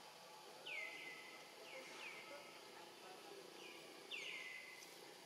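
A bird calling again and again, short notes that drop in pitch and then level off, several of them in pairs, over faint outdoor background noise.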